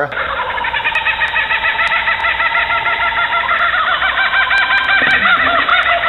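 Laughing kookaburra's laughing call: many short rising-and-falling notes repeated rapidly, several voices layered over one another in a steady cackling chorus.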